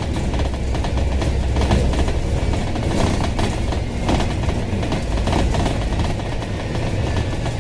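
Inside a moving Dennis bus: the engine's steady low drone under road noise, with frequent rattling and knocking from the body and fittings as it travels.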